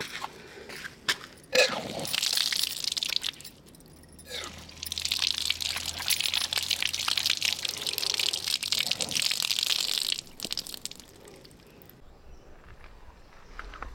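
Water from an outdoor tap running and splashing onto concrete as a guava is rinsed by hand under the stream. There is a sharp knock just before the water starts, then a short spell of running water, and then a longer spell from about four seconds in until about ten seconds in.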